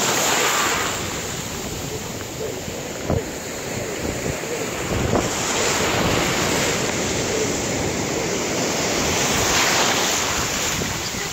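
Ocean surf breaking and washing in, a steady rushing with swells that grow louder at the start, around five to six seconds in and around ten seconds in, as waves break. Wind buffets the microphone, with a few brief knocks.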